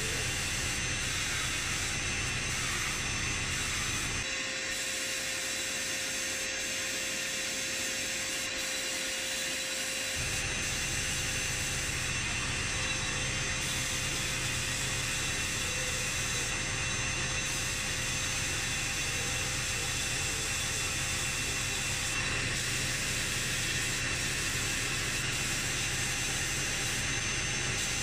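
Abrasive media blasting in a blast cabinet: compressed air and grit hiss steadily from the blast gun as the part is stripped. A low hum beneath the hiss stops about four seconds in and returns about six seconds later.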